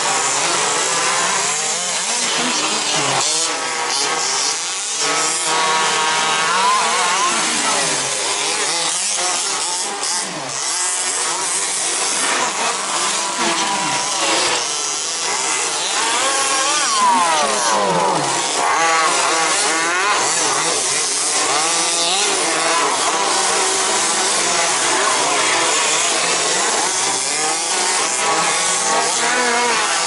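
Several radio-controlled 2WD buggies racing, their motors whining in many overlapping tones that glide up and down as they speed up and slow down, over a steady hiss.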